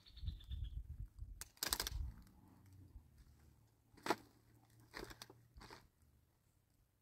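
A woven plastic sack rustling and crinkling as it is handled on stony ground, in a few separate bursts, with a sharp click about four seconds in.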